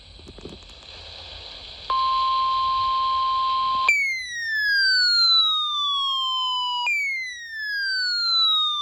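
Weather radio hiss, then a steady tone of about 1 kHz, the warning alarm tone that comes before an alert message, starting about two seconds in. After two seconds it gives way to a siren-like alarm, a falling sweep that repeats every three seconds, sounding for a special marine warning.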